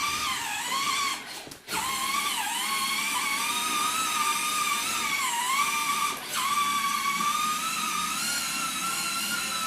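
Small electric motor of a child's ride-on toy motorcycle whining, its pitch wavering up and down as it drives. It cuts out briefly about one and a half seconds in, then starts again.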